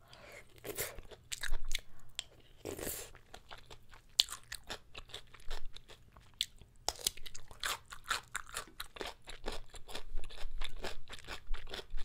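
Close-miked mouth sounds of eating spicy jjapaguri black bean noodles: a couple of longer slurps in the first three seconds, then rapid wet chewing clicks.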